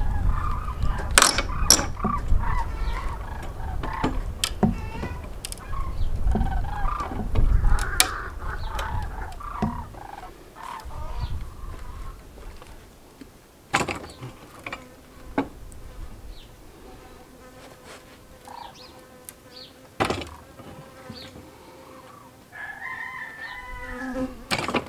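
Pallet buster prying boards off a dry wooden pallet: straining, creaking wood with sharp cracks and knocks as the nails pull out, heaviest through the first ten seconds or so, then scattered knocks. Chickens on the farm are heard, with a rooster crowing near the end.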